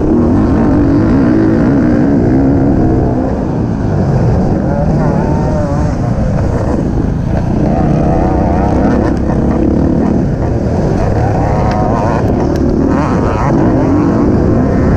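Racing vehicle's engine running hard, its revs rising and falling several times.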